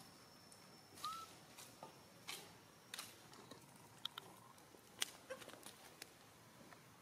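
Quiet forest-floor ambience: scattered soft clicks and rustles of dry leaves and stones, with one short rising chirp about a second in.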